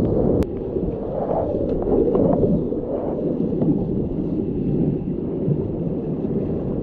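Rushing whitewater of a river rapid around a kayak running it: a steady, dull roar of breaking water and splashing, heavy in the lows with little hiss on top.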